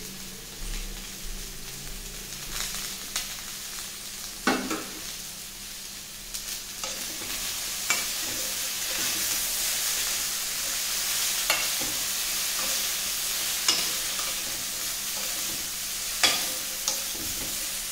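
Potato and cauliflower pieces sizzling as they fry in a kadhai, lightly fried by now. A spatula scrapes and knocks against the pan every few seconds as they are stirred, loudest about four seconds in and near the end.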